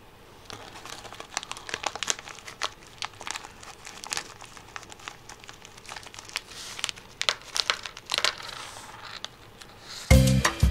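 Small clear plastic parts bag crinkling as it is handled and opened by hand, a dense run of small crackles. Music starts near the end.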